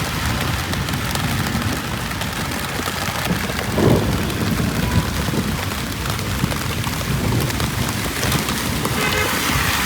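Steady rain falling on a city street, with a low rumble of traffic underneath and a vehicle passing about four seconds in. A vehicle horn sounds briefly near the end.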